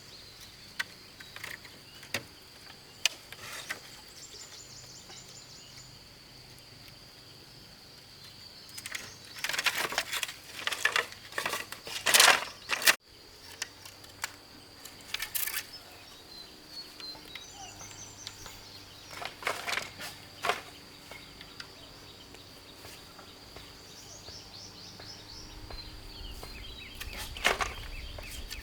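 Steady high-pitched insect drone with occasional bird chirps, broken by clusters of sharp knocks and clatter from work about ten seconds in, again around twenty seconds, and once near the end.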